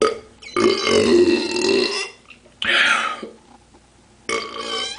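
A man belching loudly: a short one at the start, a long drawn-out belch of about a second and a half, then two shorter belches. The belches bring up carbonation from chugging fizzy drink.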